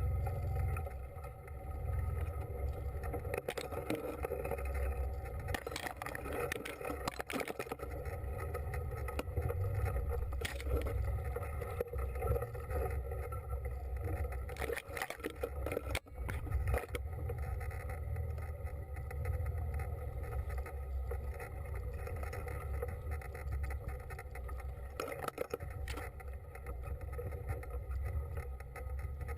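Small engine running steadily, with a few scattered knocks and scrapes.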